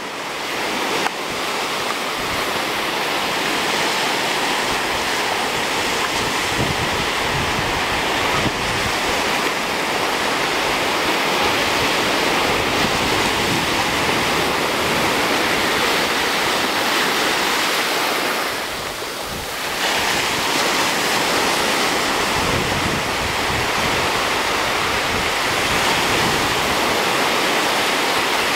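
Small surf waves breaking and washing up a sandy beach in a steady rush, briefly quieter about two-thirds of the way through.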